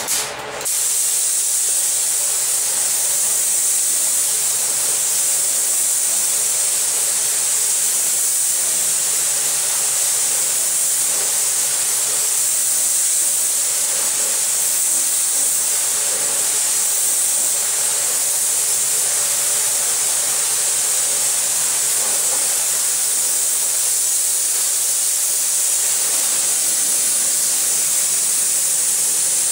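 Steady hiss of compressed air from a paint spray gun. It starts about half a second in and goes on without a break.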